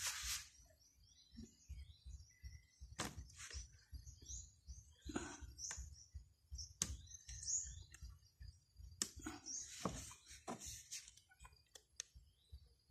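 Small birds chirping in the background, over scattered knocks and rustles from the camera being handled and repositioned.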